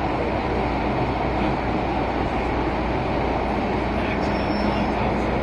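Steady rumble and rush of an MTR Tsuen Wan line metro train running, heard from inside the carriage, with a faint steady hum joining about four seconds in.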